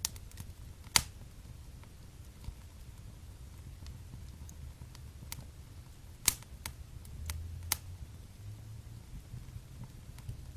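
Wood fire crackling in a fireplace: irregular sharp pops and snaps over a low rumble of flame, the loudest pops about a second in and just past six seconds.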